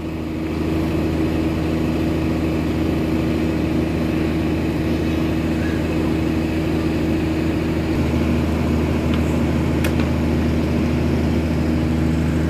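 Steady low droning hum of an engine running.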